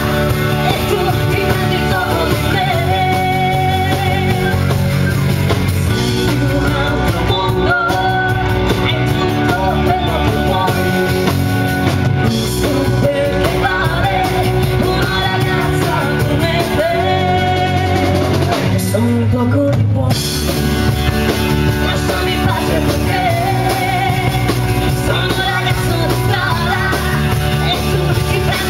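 A live rock band playing: a woman singing lead over electric guitar, bass guitar and a drum kit.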